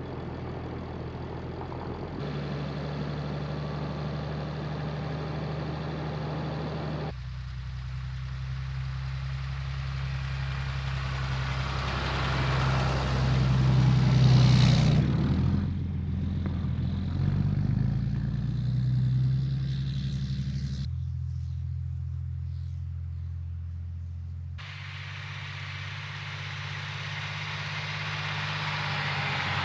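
Diesel pickup truck on the road: a steady engine drone with road noise. The sound changes abruptly several times, as between cut-together shots, and swells louder about halfway through.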